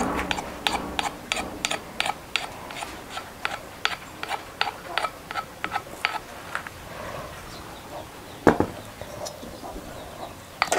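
A metal spoon and wooden pestle working a paste in a wooden mortar: quick sharp taps, about three a second, for the first six seconds, then fainter scraping and a single louder knock a little after eight seconds.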